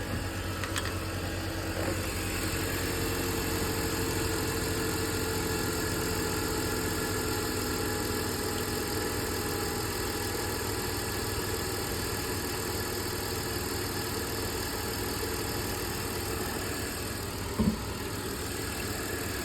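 BMW E46 engine idling steadily, left running with the heater on high while the cooling system is refilled with coolant and bled of air. A single short knock sounds near the end.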